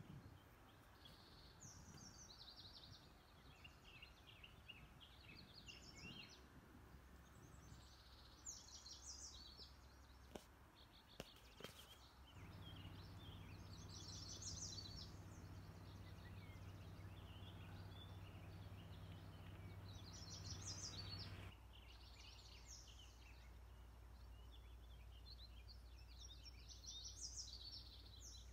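Faint songbird song in short, repeated high phrases every few seconds over low outdoor background noise, with a steady low hum through the middle stretch and a few light clicks just before it.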